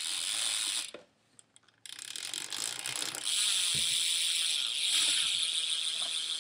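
Rear freewheel hub of a 2012 Fit Inman 3 BMX bike ratcheting as the back wheel spins, with rapid clicking that blurs into a buzz. A first burst is cut short about a second in, and then a longer run of clicking starts.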